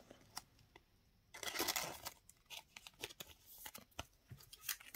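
Clear plastic card sleeve crinkling and rustling as it is handled with a trading card, loudest in one short rustle about a second and a half in, with light clicks and taps of cards being handled.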